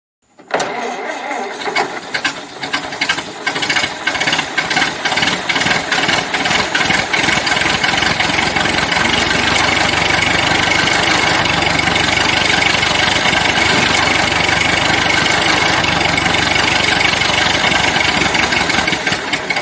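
Car engine starting and running, uneven and pulsing for the first several seconds, then settling into a steady run.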